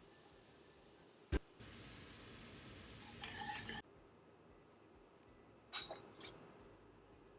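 A whisk clicking and scraping against a pan as flour is whisked into hot oil and onions for a roux. There is a sharp click, then about two seconds of sizzling hiss with scraping and clinking near its end that stops suddenly, and two short clinks a couple of seconds later.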